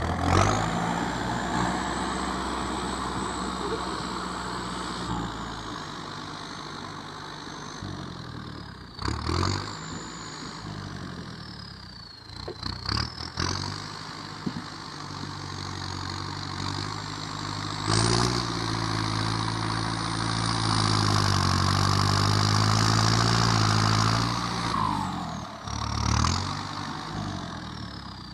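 Kubota tractor's diesel engine running through a loud custom exhaust pipe while it pushes soil with its front blade. The revs drop and rise again several times, with a long, loud high-rev push in the second half.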